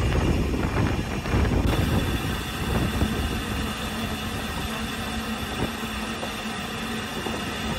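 Narrow-gauge railway carriages rumbling for the first couple of seconds, then a Double Fairlie steam locomotive standing in steam: a steady low hum under an even hiss.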